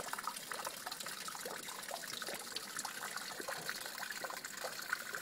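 Water trickling steadily, with many small irregular splashes.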